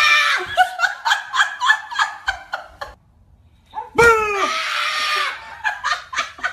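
A woman shrieks in fright, then bursts of laughter follow. After a short pause a second woman gives a long scream that falls in pitch, followed by more laughter.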